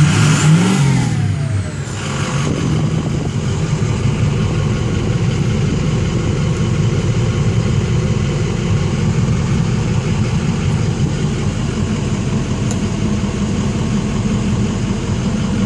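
The 2004 Ford F-450 Super Duty's 6.0 Power Stroke V8 turbo-diesel, heard from inside the cab. It is revved briefly at the start, falls away within the first couple of seconds, then settles to a steady idle.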